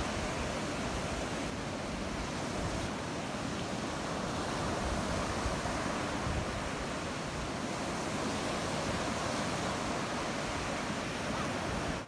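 Ocean surf breaking and washing up the beach in a steady rushing noise, with wind buffeting the microphone.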